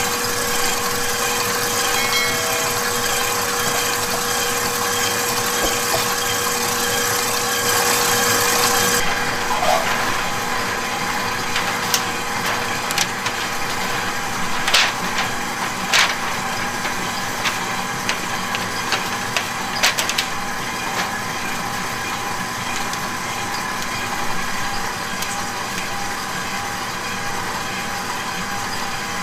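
KitchenAid Professional stand mixer whisking chocolate batter, running steadily with a faint whine, until the sound changes abruptly about nine seconds in. After that, parchment paper is rustled and creased over a steady kitchen hum, with a few sharp clicks.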